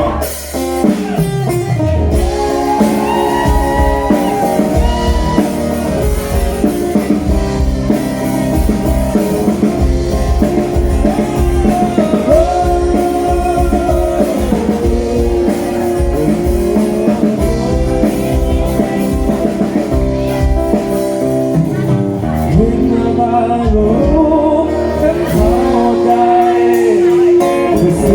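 Thai folk-pop band music with a steady drum-kit beat, bass and guitar, and a lead melody line bending in pitch over it, without sung lyrics. A falling slide sounds in the first two seconds.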